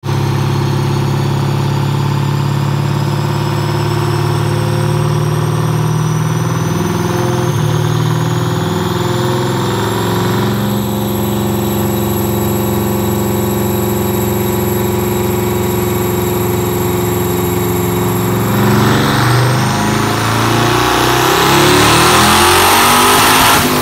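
Twin-turbo stroker Hemi V8 of a Chrysler 300 SRT8 running on a chassis dyno, with a whine rising slowly in pitch through the first half. Over the last five seconds it grows louder and rougher as the car makes a hard pull.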